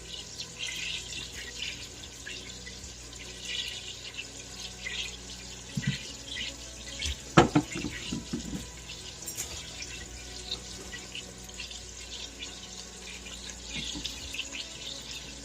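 Kitchen faucet running into a sink, with a sharp knock about halfway through.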